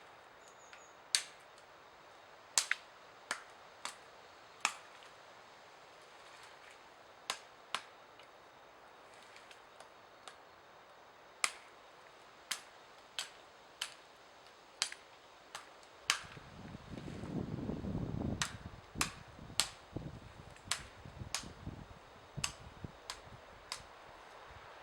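Around twenty sharp knocks of a tool striking wood, spaced irregularly, during shelter building. For a few seconds about two-thirds of the way in, a low rustling rumble sits beneath the knocks.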